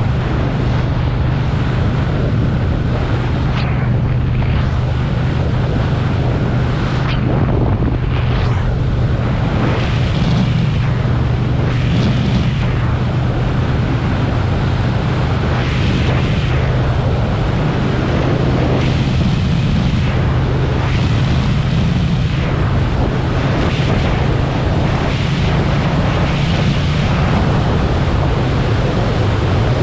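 Motorcycle engine running at a steady cruise, a constant low drone, under heavy wind rush on the microphone that swells and eases every few seconds.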